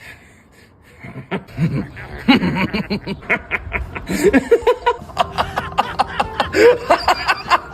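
A long fit of hard laughter in rapid repeated bursts, starting about a second in: a voiced character cracking up at a joke.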